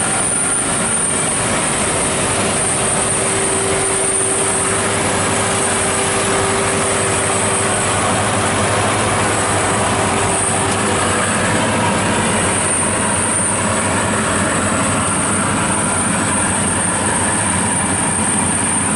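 A '102' rice combine harvester running steadily as it cuts and threshes rice: a loud, even machine noise from the engine and threshing works, with a steady hum over the first half that fades out around halfway. The fan has just been repaired and no longer rubs.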